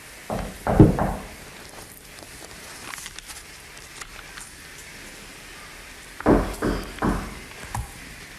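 Dull thumps in two groups, a couple about a second in and three more near the end, over a faint steady hiss.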